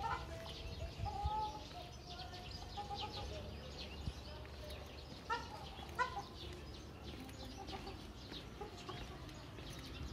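Birds calling: a run of short pitched calls in the first few seconds, then two louder calls about five and six seconds in, with faint high chirps throughout.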